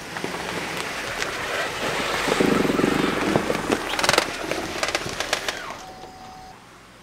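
A 2013 Buick Enclave's V6 running as the SUV drives away over gravel, its tyres rolling on the loose stones; the sound swells to its loudest a few seconds in, fades, and drops off suddenly near the end.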